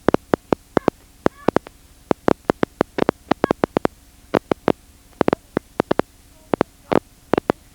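Rapid, irregular sharp clicks, several a second, over a faint steady hum.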